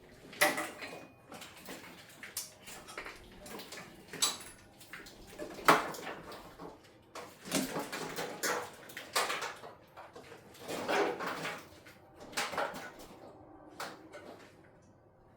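Hand tools and metal parts clinking and clattering at irregular moments, with a few sharper knocks, the loudest about halfway through, during work on the car's engine bay.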